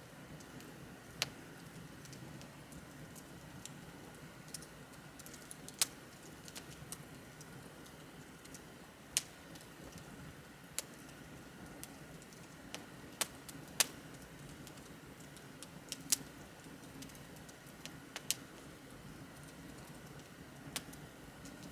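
Wood bonfire crackling: sharp, irregular pops and snaps every second or two over a soft, steady low rustle of the flames.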